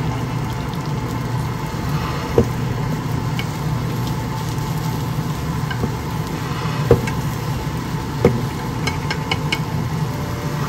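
Wooden chopsticks stirring and tapping beaten egg in a rectangular tamagoyaki pan on an induction hob, with a few sharp taps against the pan. Under this runs a steady low hum.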